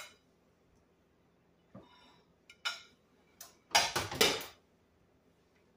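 Kitchen handling noises: a few light clicks and knocks, then two loud clatters about four seconds in as a ceramic plate of shredded chicken is moved and set down on a cast-iron skillet.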